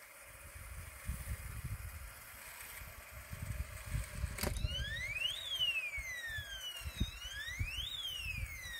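Electronic deterrent siren of a pest-animal repeller: a click about halfway through, then a wailing tone that sweeps slowly up and down, one rise and fall roughly every two and a half seconds. It is sounding to scare off water deer. A low rumble runs underneath.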